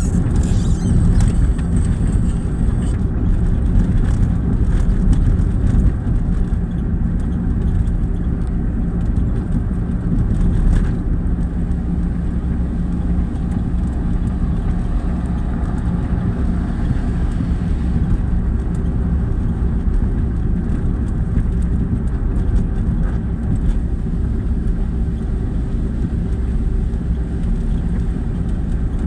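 An engine running steadily at a constant speed, with a deep, even hum.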